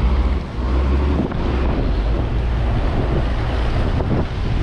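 Passenger express boat underway: its engine running with a steady low rumble, mixed with wind buffeting the microphone and water rushing past the hull.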